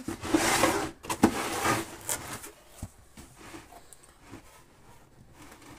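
Hard plastic tool carrying case being slid and turned over on a floor: two scraping rubs in the first two seconds, with a few knocks, then only faint handling.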